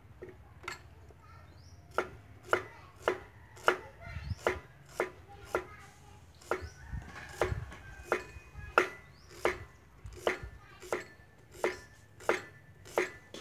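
Cleaver slicing a carrot into rounds on a wooden chopping board: sharp knocks on the board, a single one near the start, then steadily about twice a second from about two seconds in.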